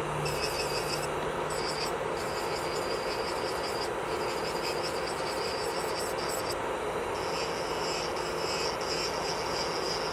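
Electric nail drill (e-file) running steadily, with a higher hiss from the bit that cuts in and out every second or so.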